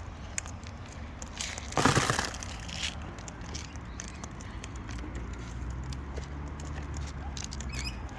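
Small sharp clicks and taps of wild parrots pecking and cracking seed, with one short harsh noisy burst about two seconds in.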